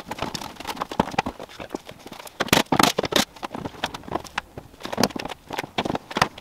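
Plastic clicks and knocks as the rear bumper cover of a Nissan 350Z is pulled off: trim clips popping and the plastic cover flexing and knocking, thickest a little past halfway.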